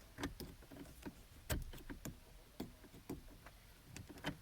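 Scattered plastic clicks and knocks as a steering-column windshield wiper switch is pushed down, pulled back and worked loose from its mount.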